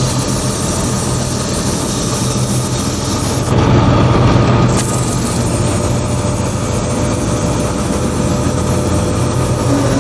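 Drum sander running with a steady hum while a rubber cleaning stick is held against its spinning sanding drums to scrub off resin gunk. About three and a half seconds in there is a louder scrubbing rush lasting about a second.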